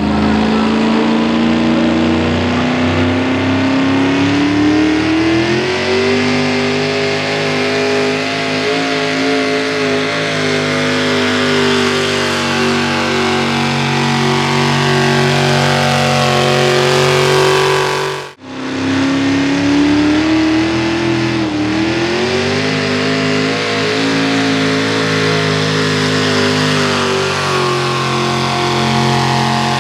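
Small-block V8 pulling truck at full throttle under load: the engine note climbs over the first few seconds and then holds high. About two-thirds of the way in it cuts off abruptly, and another full-throttle pull starts, climbs and holds again.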